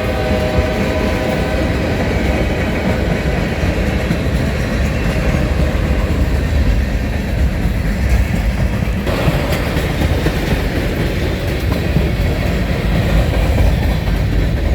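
Heavily loaded Norfolk Southern freight train rolling past, a steady heavy rumble with wheels clattering on the rails. The tail of a horn blast fades out at the very start.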